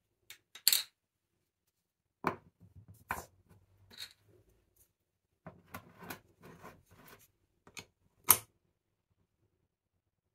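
Glass spice jar and its bamboo lid handled on a stone countertop: a string of sharp knocks and clicks, the loudest near the start and about eight seconds in, with softer rustling handling noise in between.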